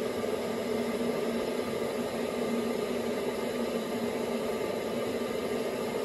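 Steady electric hum with an airy fan rush from a running kitchen appliance, unchanging throughout.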